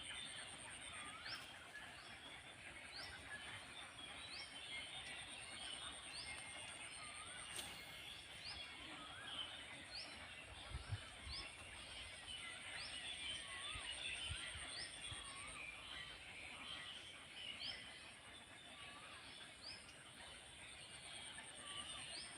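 Faint outdoor ambience of birds calling: a short rising chirp repeated about once a second, with softer hooked calls lower down, over a steady high-pitched whine.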